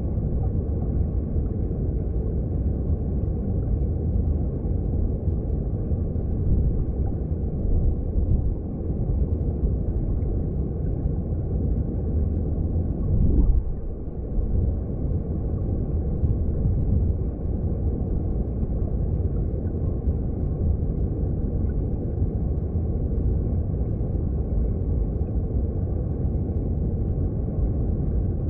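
Underwater sound of a mountain stream: a steady low rumble of flowing water heard below the surface, with a brief louder surge about halfway through.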